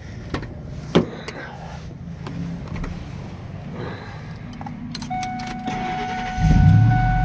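Door and handling clicks. About five seconds in, a steady high tone comes on. Near the end the supercharged 5.4-litre V8 of a Ford F-150 SVT Lightning cranks, catches and runs loudly at a raised idle just after the start.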